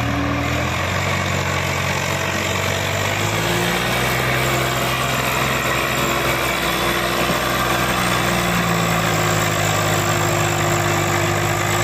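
Swaraj 744 tractor's diesel engine working hard under full load as it pulls a heavily loaded sand trolley, enough to lift its front wheels off the ground. The engine note is steady, shifting slightly in pitch a couple of times.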